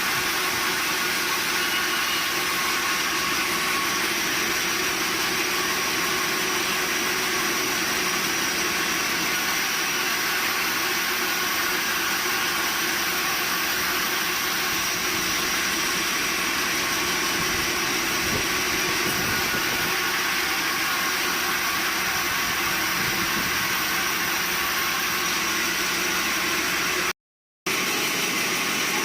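Sawmill machinery running steadily: an even mechanical noise with several constant whining tones, cutting out to silence for about half a second near the end.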